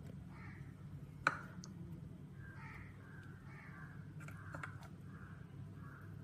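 A metal spoon clicking and scraping as vegetable masala is spooned onto a slice of bread on a sandwich-grill plate: one sharp click a little over a second in and a few lighter ticks near the middle, over a low steady hum.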